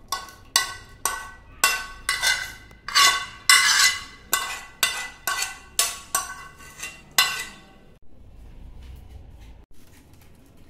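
A metal spoon scraping and knocking against a small steel tempering pan, about two sharp ringing strokes a second, stopping about seven and a half seconds in.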